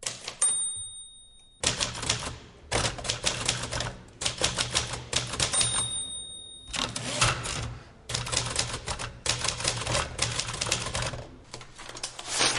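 Typewriter keys clacking in rapid runs separated by short pauses. Twice a high, steady ring sounds for about a second, like the typewriter's end-of-line bell.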